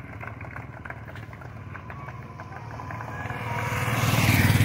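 Motorcycle engine running steadily as the bike rides up, growing louder over the last second or two as it passes close by.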